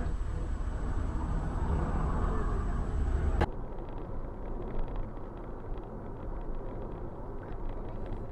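Vehicle road noise as picked up by a dashcam: a steady rumble, then after a sudden cut about three and a half seconds in, a quieter, thinner steady noise of a car driving along a highway.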